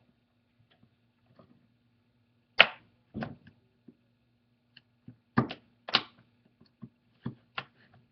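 Plastic retaining clips of a Google Nexus 7 tablet's back case snapping loose as a pry tool works along the edge: a handful of sharp clicks and snaps, the loudest about two and a half seconds in.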